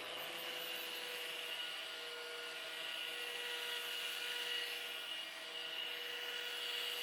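Electric hand-held power tool running steadily at constant speed: a steady motor whine over a rubbing hiss.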